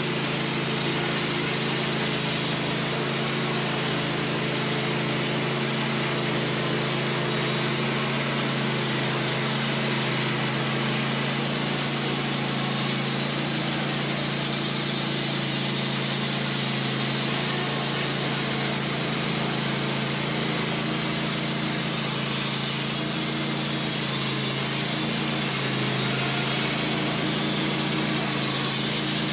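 Wood-Mizer LT15 portable band sawmill running steadily, its band blade cutting a long pass through a hard maple log, with the drone of the mill's motor under the steady rasp of the cut.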